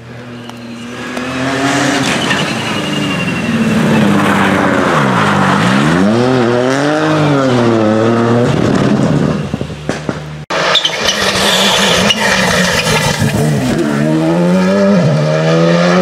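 Rally car engine approaching at full throttle, its note dropping and climbing again through a bend as it shifts gear, with some tyre squeal. After an abrupt cut about ten seconds in, a Škoda rally car's engine revs hard close by as it accelerates up the road.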